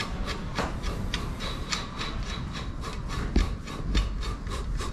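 Rhythmic clicking and rasping, about four short strokes a second, as a part is worked by hand.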